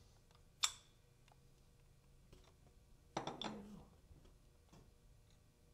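Parts of a test head being handled on a metal bench plate: a sharp clink under a second in and a short clatter about three seconds in, with faint ticks of parts being moved in between.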